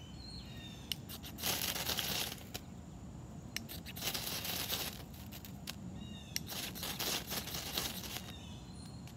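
Knife spine scraped down a ferrocerium rod three times, each a long rasping scrape of about a second, the last a little longer. The strokes throw sparks onto dry wood shavings to light them.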